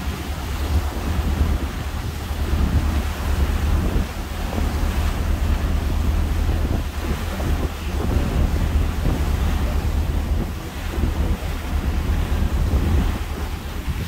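Wind buffeting the microphone over the wash of choppy water, with a deep rumble that swells and eases every second or two.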